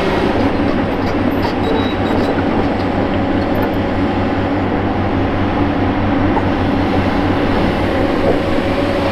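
Diesel engine of a Hitachi Zaxis 470 LCH excavator running steadily under load, a continuous deep drone, with a few faint clicks in the first two or three seconds.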